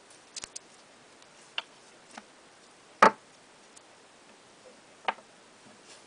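A few scattered clicks and taps from paper and plastic packaging being handled and set down on a table, with one sharper knock about three seconds in.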